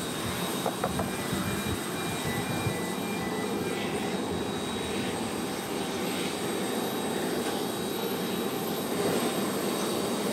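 A jet airliner's turbine running steadily on the apron: an even rushing noise with a high whine through it.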